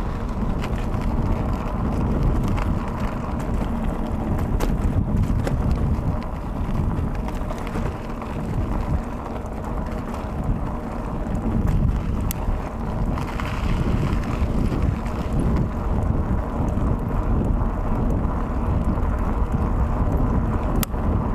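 Wind rushing over the microphone and the rumble of a mountain bike riding over cracked, patched asphalt, with a few sharp clicks and rattles from the bumps.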